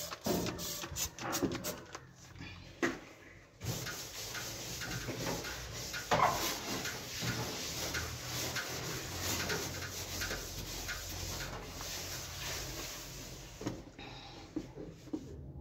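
A gloved hand scrubbing the metal inside of an oven with a cleaning pad. At first the strokes come a few a second; after a short pause the rubbing goes on more steadily.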